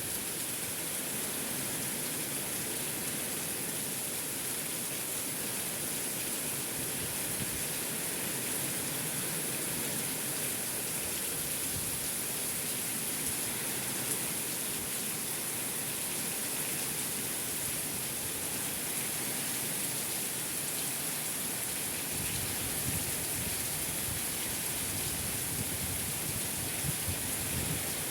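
Heavy rain falling steadily, a dense even hiss. About three-quarters of the way through, a low rumble joins in under it.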